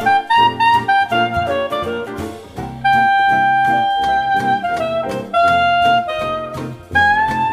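Jazz background music: a lead melody of quick short notes over chords and bass, with one long held note about three seconds in.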